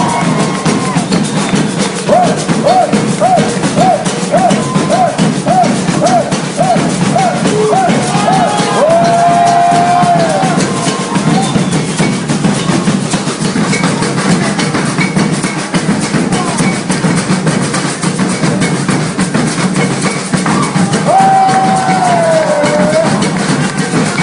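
Maracatu drumming: bass drums and snare rolls playing a steady, loud beat. A short high call repeats about twice a second over the drums for several seconds, ends in a long held note, and a falling call comes near the end.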